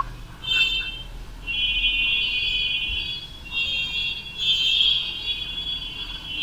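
A shrill, high-pitched alarm-like tone, first in short bursts and then held for several seconds with brief dips.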